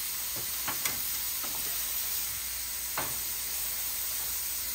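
Thick amberjack fillets sizzling steadily in butter in a nonstick frying pan, with a few light clicks as a metal spatula touches the pan and lifts a fillet.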